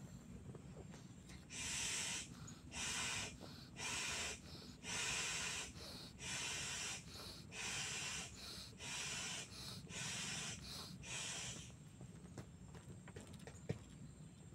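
Air pump inflating a rubber boat: about ten rhythmic puffs of rushing air, roughly one a second, stopping about twelve seconds in. A single sharp click near the end.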